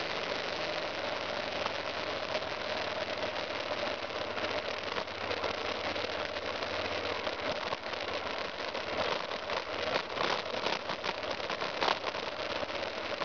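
Single-cylinder motorcycle engine running steadily at low trail speed. Clicks and rattles come from the bike jolting over a rough dirt track, growing more frequent in the last few seconds.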